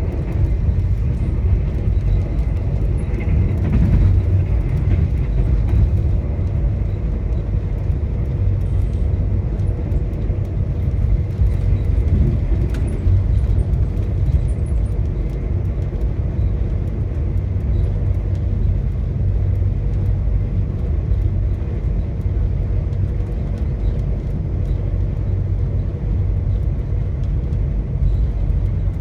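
Steady low rumble of a VIA Rail passenger train rolling along at an even speed, with faint light clicks now and then.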